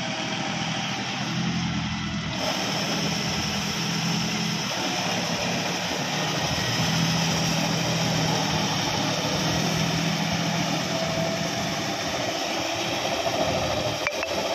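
John Deere 5210 4WD tractor's diesel engine running steadily under load as it drives a rotary tiller through flooded paddy mud.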